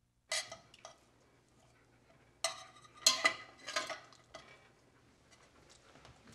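Metal frying pan being handled on an electric stovetop: several sharp metallic clanks and clatters, one just after the start and a cluster between two and four seconds in.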